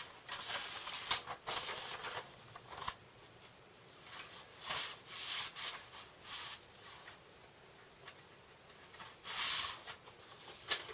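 Vinyl records and their sleeves being handled, rustling and sliding in a series of short bursts, with a sharp click near the end.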